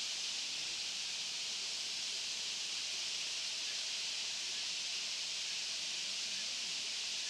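Massed chatter of a huge flock of rosy starlings, thousands of calls merging into a steady high hiss.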